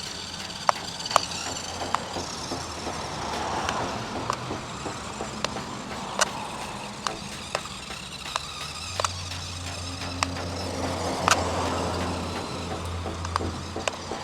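Toy RC crawler driving, its small electric drive motors running under frequent sharp clicks and knocks from the plastic car and wheels on rough ground, with the hum growing louder for a few seconds in the second half.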